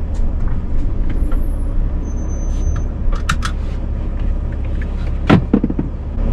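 Mercedes Sprinter 4x4 van's engine idling steadily as a low, even hum, with a few light clicks and one sharper knock about five seconds in.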